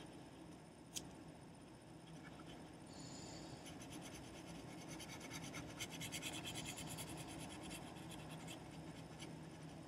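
Faint pencil scratching on paper in quick, repeated sketching strokes, busiest in the middle, with one sharp tick about a second in.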